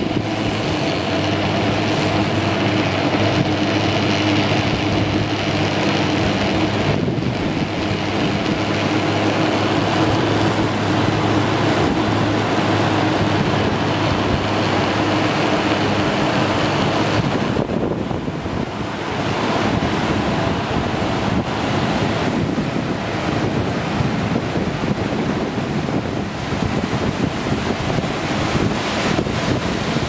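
Cable car running along its steel cable with a steady mechanical hum over a constant rush of wind on the microphone. The hum stops about two-thirds of the way through, leaving the rushing of wind and the river below.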